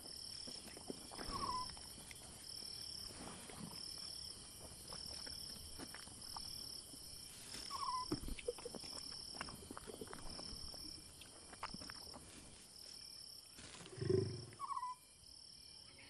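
Insects chirping in a steady high rhythm, about one pulse a second, with a few short bird-like chirps and scattered soft clicks. A short low lion growl comes near the end.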